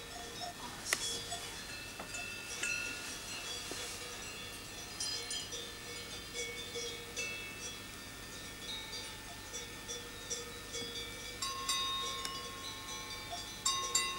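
Cowbells on grazing cattle clinking and ringing irregularly, several bells of different pitches sounding at once.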